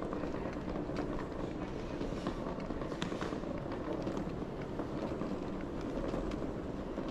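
Steady, echoing hubbub of a large glass-roofed terminal hall, with scattered sharp clicks and footstep-like taps.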